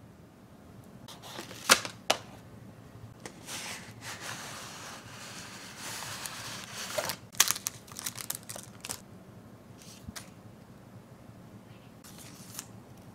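Hands handling a cardboard sweets box and its paper sleeve: two sharp clicks of the cardboard, then a rustle as the sleeve slides, a quick run of clicks and taps, and lighter paper handling near the end.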